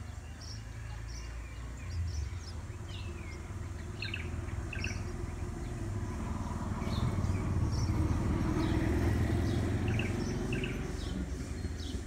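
Common tailorbirds at their nest giving short, high chirps, some falling in pitch, repeated irregularly, as the adult feeds the chicks. Under them, a low rumble swells through the second half and fades near the end.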